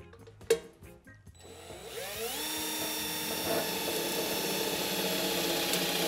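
Cordless drill spinning up about a second and a half in, then running at a steady whine as a small bit drills a pilot hole through the thin sheet-metal top of a motorcycle gas tank.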